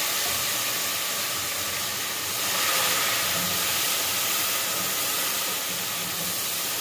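Water just poured onto hot oil and fried onions in a cooking pot, sizzling and hissing steadily. The hiss swells briefly about two and a half seconds in.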